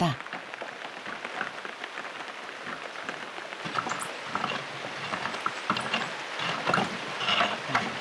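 Steady rain falling, with many scattered light ticks and a few brief scraping sounds in the last couple of seconds.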